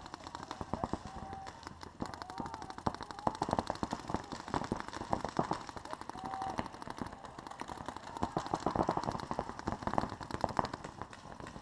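Paintball markers firing rapid strings of shots, a dense popping across the field that is busiest about eight to nine seconds in.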